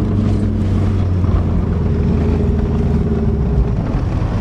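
Subaru Legacy's engine running steadily as the car drives, a low drone. About three and a half seconds in it gives way to a rougher, noisier rumble.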